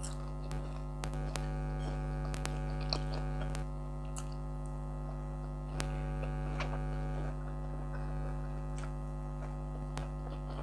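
Air conditioner running with a steady electrical hum made of several level tones. Faint chewing and small clicks from eating sit over it.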